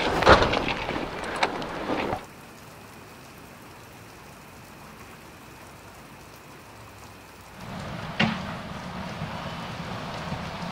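Knocks and clatter for about two seconds, then rain falling steadily on wet pavement as an even hiss. About three seconds from the end, a low steady hum comes in with a single sharp knock.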